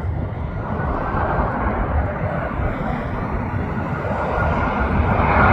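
Boeing 737-700 airliner on landing approach, the jet noise of its CFM56-7B turbofans growing louder toward the end as it nears, over a steady low rumble.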